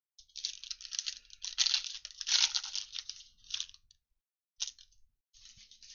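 Trading card packaging being torn open and crinkled, a dense crackling that runs for nearly four seconds, followed by a few brief rustles.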